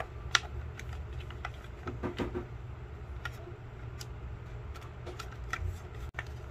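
Scattered light plastic clicks and taps from the dust bin and cyclone assembly of a Dreame V11 cordless vacuum being handled and turned over, with a sharper click just after the start and a short cluster of knocks about two seconds in.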